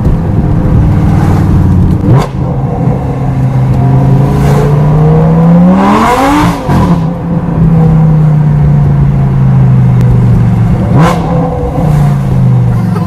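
Lamborghini Gallardo LP560-4's 5.2-litre V10 with an Armytrix aftermarket exhaust, heard from inside the cabin, pulling hard under acceleration. The engine note climbs and breaks sharply about two seconds in, around six seconds and near eleven seconds, as the revs rise and fall through the gear changes.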